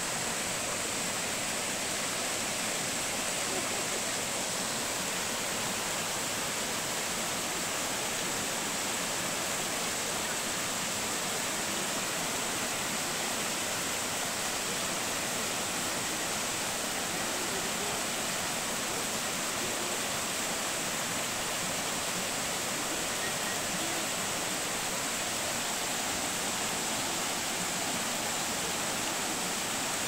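Waterfall about 15 metres high pouring onto rocks: a steady, unbroken rush of falling water at an even level throughout.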